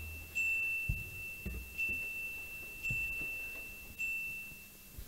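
A single high chime note struck four times, about once a second, each strike ringing for roughly half a second to a second. A few dull low thumps fall in between.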